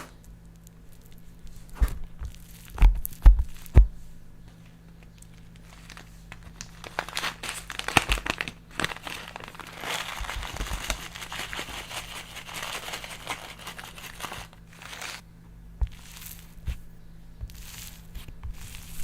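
Hands working slime: several soft thumps about two to four seconds in, then a long stretch of sticky crackling and popping as it is squeezed and stretched.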